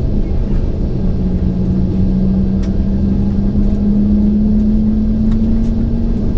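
Cabin noise inside a Boeing 767-400ER on the ground before takeoff: its General Electric CF6-80C2 engines running at low power as a steady rumble. Over it is a steady hum that rises slightly in pitch.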